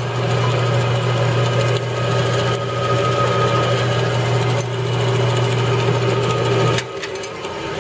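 Jet 14-inch vertical band saw running with a steady motor hum, set to what is taken for its highest speed. The hum stops abruptly near the end.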